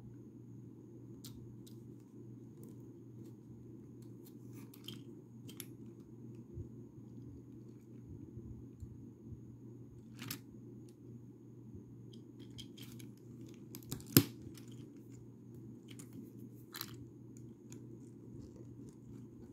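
Plastic Lego bricks being handled and snapped together: scattered light clicks and rattles, with one sharp, loud click about two-thirds of the way through. A steady low hum runs underneath.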